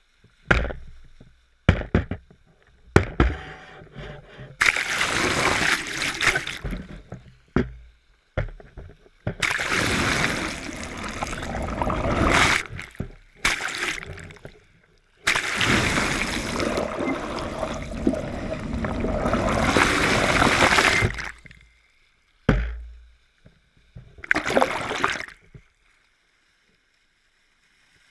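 Seawater rushing and splashing over a camera held at the wave surface, in long gushing bursts a few seconds each with near-quiet gaps between, and a few short sharp slaps of water against the housing in the first few seconds.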